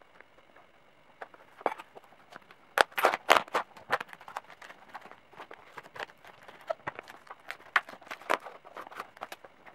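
Packing tape being cut and torn off a cardboard postal box, with the box handled: an irregular run of short, sharp crackling rips, loudest about three seconds in.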